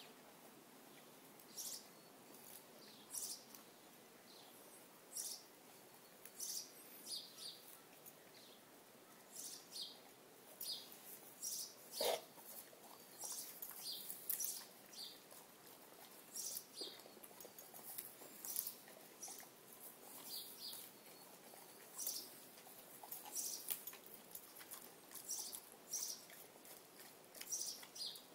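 A dog tearing and chewing grass: faint, irregular crisp snaps and crunches, with one louder knock about twelve seconds in.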